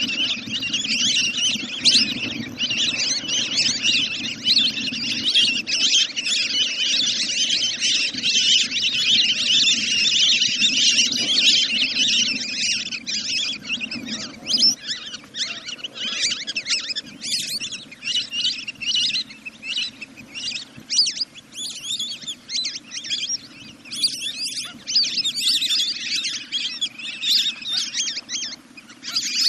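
Wild duck calls: a dense, fast chatter of high whistling notes repeated many times a second, as played for luring ducks at night.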